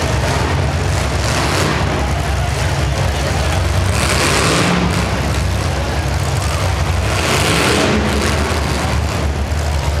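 Several demolition derby cars' engines running together in a loud, rough rumble, with two louder surges of noise about four and seven seconds in.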